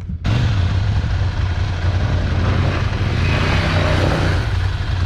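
Scrambler Ducati motorcycle's L-twin engine running under way. A loud rushing noise cuts in suddenly about a quarter second in and carries on over the engine.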